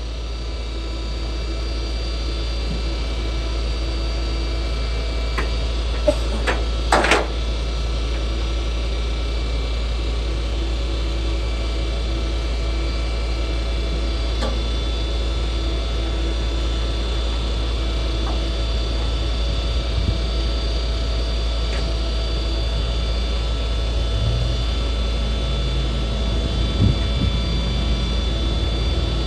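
Rollback tow truck idling with a steady low hum, with a few sharp metallic clanks about six to seven seconds in as the load on the bed is handled.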